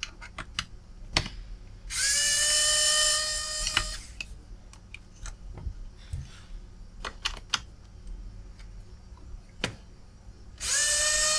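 Pen-style electric precision screwdriver running twice for about two seconds each, a small motor whine that rises briefly as it spins up and then holds steady, as it undoes the screws on a laptop graphics card's heatsink. Light clicks of the bit and tools come between the two runs.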